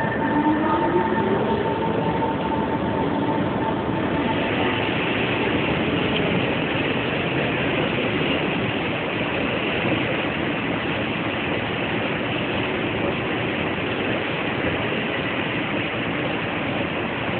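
SMRT MRT train pulling out of the platform: its motor whine rises in pitch over the first couple of seconds as it accelerates, then gives way to a steady rushing noise that carries on as the train runs off into the distance.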